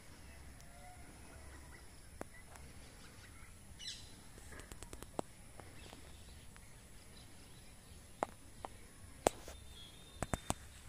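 Faint outdoor ambience with a low steady rumble, a few faint bird chirps and scattered sharp clicks, the loudest about nine seconds in and a quick cluster near the end.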